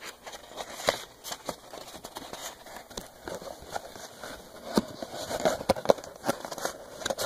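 Irregular crinkling and tapping of a strip of thin cardboard being handled and wrapped around a harmonic damper, with sharper taps in the second half.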